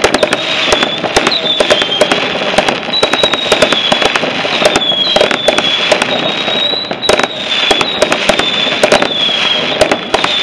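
Fireworks display: a dense, unbroken string of sharp bangs and crackles from exploding firecrackers and aerial shells. A high, wavering whistle keeps coming back over the bangs.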